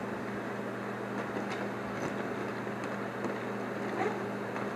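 Roller hockey rink ambience: a steady low hum under an even rushing noise, with a few faint clicks.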